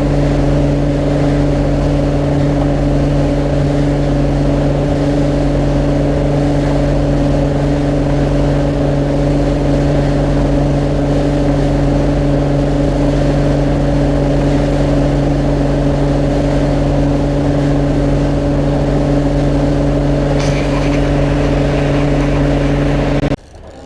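Motorboat engine running at a steady, unchanging speed while the boat is underway, its even hum over a loud rushing noise; it cuts off suddenly near the end.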